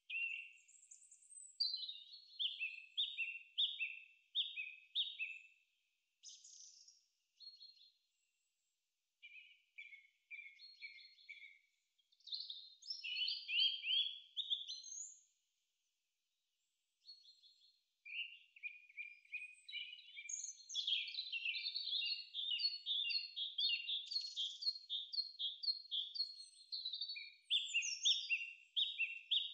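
Songbird singing: phrases of quick, repeated down-slurred chirps, broken by short pauses.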